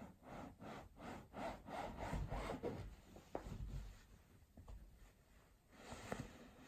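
Black suede Globe high-top skate sneakers rubbing and scuffing against each other and over a cotton bedsheet, in quick repeated brushing strokes for about three seconds, then a few soft knocks and more rustling near the end.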